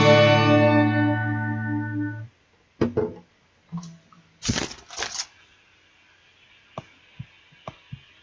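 Acoustic guitar's final strummed chord ringing out for about two seconds, then cut short. A few scattered knocks and clicks follow, the loudest a pair about halfway through.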